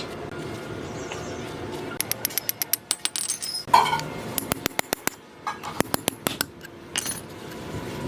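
Small metal parts clicking and clinking in quick irregular runs, from about two seconds in until about seven seconds in.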